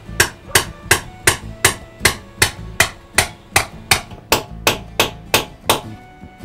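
Rapid, even hammer blows, about three a second, breaking a stuck cleanout plug out of a sewer house trap. The blows stop shortly before the end.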